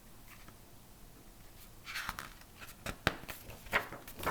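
Pages of a picture book being handled and turned: soft paper rustles and a few sharp clicks, starting about two seconds in.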